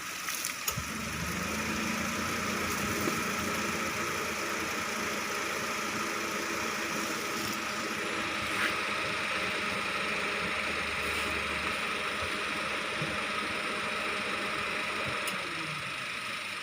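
A motor running steadily with a low hum, over a steady hiss. The hum comes in about a second in and fades near the end.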